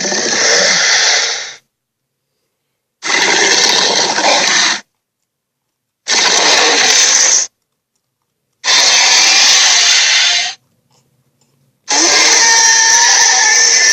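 Monster growl sound effect, a harsh, noisy snarl played five times in bursts of one and a half to two seconds, each cutting off into dead silence.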